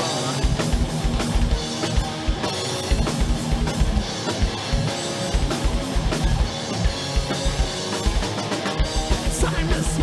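Live heavy metal: two electric guitars played over a drum kit with rapid bass-drum beats.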